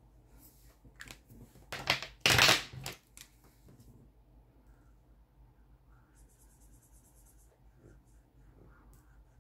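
A felt-tip marker being handled and swapped, with a brief loud rustle and knock about two seconds in, then quick back-and-forth marker strokes scratching on paper as a circle is coloured in.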